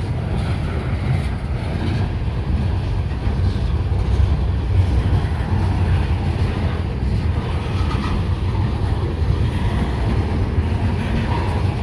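Freight train rolling past, a steady low rumble of wheels on rail.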